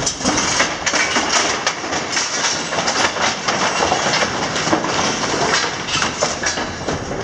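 Masonry and brick rubble falling during a building demolition, crashing and clattering down in a dense, unbroken stream of knocks and impacts.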